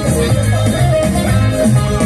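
Festive Andean folk dance music with a steady, repeating bass line and a melody line above it, played for the dancers.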